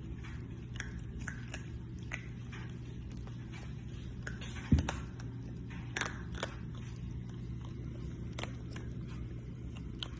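Baby raccoon chewing and crunching food, with scattered small crunchy clicks. One sharp low thump about halfway through.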